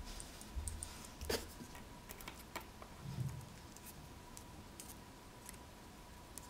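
Faint, scattered small clicks and taps of metal tweezers against glued pebbles and paper as hot-glue strings are picked off, with one sharper click about a second in and a soft low bump around the middle.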